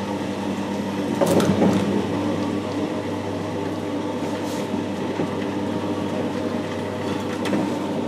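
Lecture-hall vertical sliding whiteboard panels moving on their tracks: a steady mechanical hum and rumble, with a couple of knocks about a second in.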